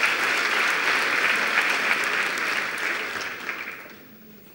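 Large audience applauding, many hands clapping together; the applause dies away about three and a half seconds in.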